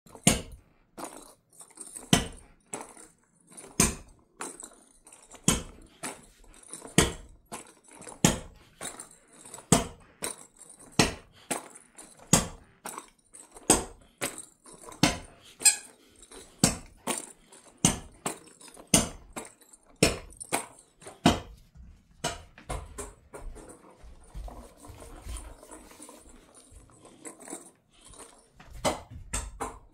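Jindo dog giving short, loud barks one at a time, about one every second or so, becoming quieter and more scattered near the end.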